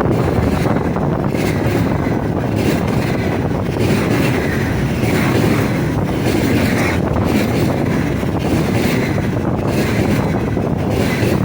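Freight train rolling past at speed: a steady rumble of wagon wheels on the rails, with wind buffeting the microphone.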